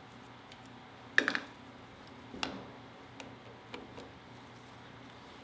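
A few sharp clicks and taps of a screwdriver and small parts as the top-cover screws are taken out of a Honda CB350's Keihin carburetor. The loudest cluster comes about a second in, then single clicks spaced out.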